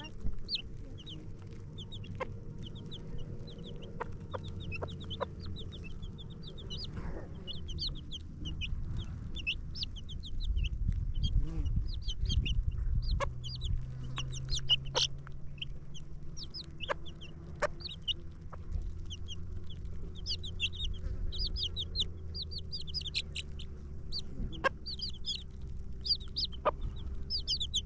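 Chickens, with many short high-pitched cheeps running on throughout. Underneath is a steady low rumble that swells about ten seconds in, with a few scattered clicks.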